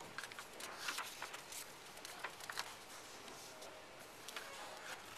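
Sheets of drawing paper being handled and shifted on a desk: faint rustling with scattered light ticks and taps.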